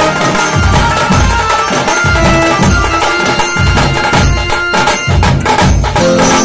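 Bengali tasa band playing: several tasa drums struck fast with thin sticks over a deep drum beat about every three-quarters of a second, with an electronic keyboard playing the melody.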